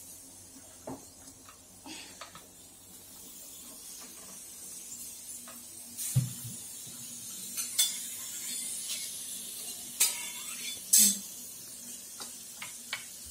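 Aluminium pressure cooker handled on the stovetop with metal clinks and a few sharp knocks, and from about halfway a faint steam hiss from the vent as a ladle lifts the whistle weight to let out the remaining pressure after cooking.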